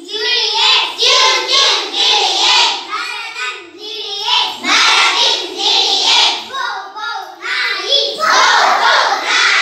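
A group of children singing together, loud and in short phrases with brief breaks between them.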